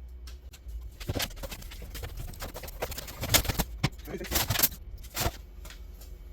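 Irregular knocks, clicks and clatter as objects are handled and moved about, with a few sharper knocks toward the middle, over a low steady hum.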